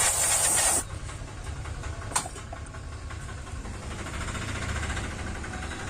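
Aerosol freeze spray hissing onto a powered-on AV receiver circuit board, cutting off under a second in: a cold test to see whether chilling the board brings back the no-sound fault. After it a low steady hum remains, with one sharp click about two seconds in.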